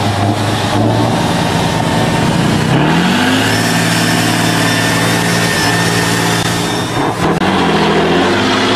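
Tatra 813 6x6 trial truck's diesel engine working under heavy load as it climbs through a dirt pit. The revs rise about three seconds in and hold high, dip briefly near the end, then pick up again.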